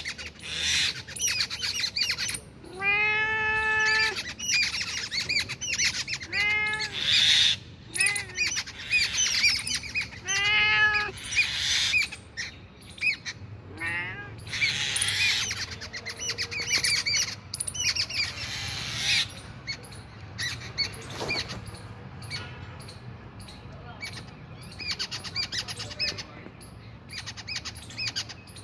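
Many small birds chirping continuously, with four louder, drawn-out calls in the first half, the longest about a second long.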